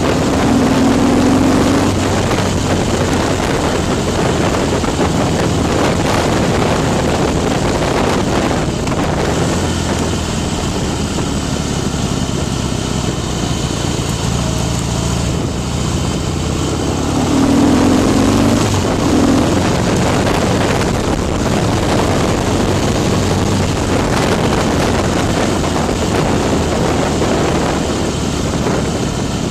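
Harley-Davidson Night Train's V-twin engine, bored out to 103 cubic inches with a Stage II big bore kit, running under way, with heavy wind noise on the microphone. The engine swells louder briefly about a second in and again a little past halfway.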